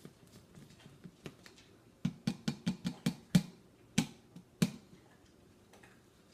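A quick run of short, sharp clicks or knocks, about eight in a second and a half, then two more spaced apart.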